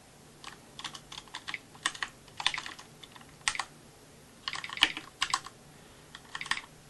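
Typing on a CM Storm QuickFire Pro mechanical keyboard, with the Clickey program playing a distinct click for each key press while the keys are pressed without bottoming out. The clicks come irregularly, singly and in quick runs of several strokes.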